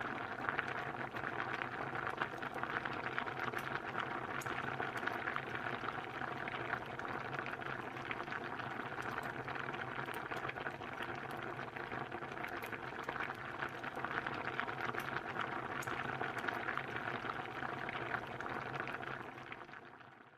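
Soup boiling in a pot: a dense, steady bubbling with many small pops, fading out at the very end.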